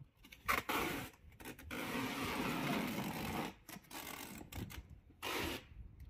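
Wide adhesive tape being pulled off its roll in noisy strips as it is stretched across a person and a wall: a short broken pull, then one long pull of about a second and a half, then another short pull near the end.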